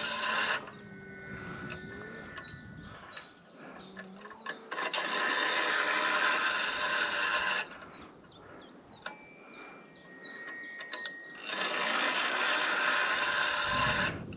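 Fishing reel being wound in three spells of a few seconds each, its gears whirring steadily, as a fish is reeled in on a bent float rod. Birds chirp in the pauses between spells.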